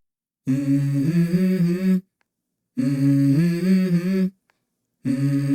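A hummed vocal melody in three short phrases with silent gaps between them, the intro of the background song.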